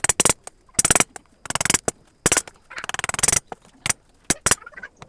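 A wood-carving chisel being driven into wood by quick mallet taps, in short bursts of rapid strikes with brief pauses between them.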